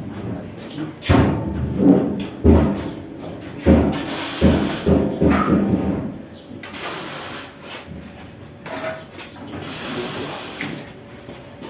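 Handling noise from a heavy laser cutting machine being lifted and moved by hand: a run of knocks and bumps in the first few seconds, then several hissing scrapes as it is shifted.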